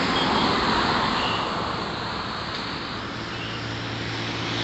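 Road traffic noise: a steady rushing hiss that eases off a little about halfway through.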